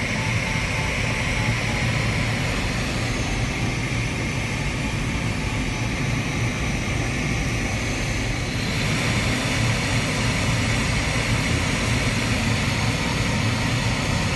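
Steady rush of airflow around a sailplane's canopy, heard inside the cockpit in flight, with the hiss turning a little brighter about nine seconds in.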